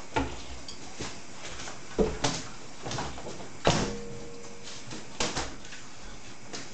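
Kitchen clatter: a scattered series of sharp knocks and clunks, like cupboard doors or pots and dishes being handled, with a short steady tone for about a second near the middle.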